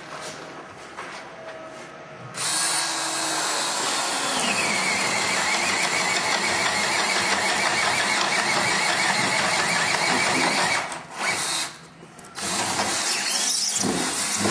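Power drill boring a long ship auger bit into the wooden framing of a SIP wall. It runs steadily for about eight seconds, with a high squealing whine from the bit in the wood. Then it stops, gives a brief burst, and makes one more short run near the end.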